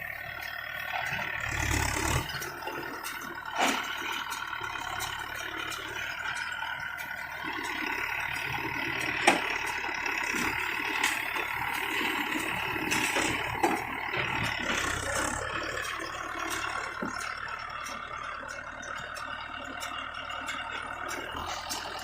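Mahindra Yuvo 475 tractor running steadily while it drives a baler. A few sharp knocks stand out over the running, the loudest about nine seconds in.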